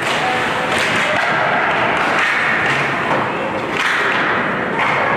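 Ice hockey play: skate blades scraping the ice with several thuds of the puck and players against the boards, and sticks knocking.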